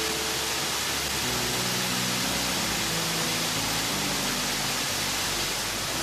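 Waterfall rushing steadily, a dense even hiss of falling water, with slow sustained background music notes beneath it.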